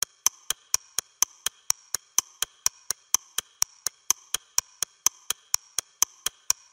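A steady, clock-like ticking: sharp, even ticks at about four a second.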